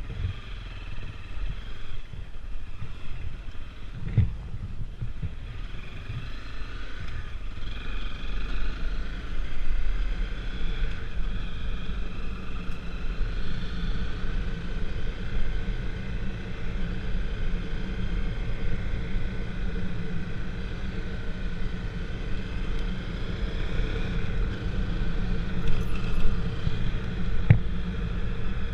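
A moving vehicle heard from an on-board camera: a steady low rumble of road and wind noise, with a faint droning tone that drifts slowly in pitch and a couple of brief knocks.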